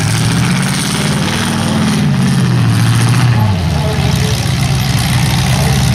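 Demolition derby cars' engines running at idle, with one engine revving up and easing back down over the first few seconds.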